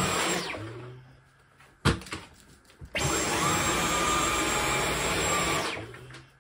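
Dyson V11 Absolute cordless stick vacuum running in eco mode, then winding down to a stop about half a second in. A sharp click and a few lighter ones follow. The motor starts up again suddenly about three seconds in with a short rising whine, runs steadily, and winds down again near the end, with another click.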